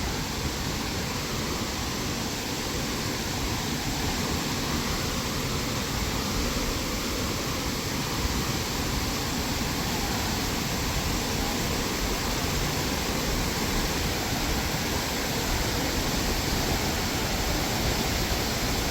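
Large waterfall: a steady rush of falling water.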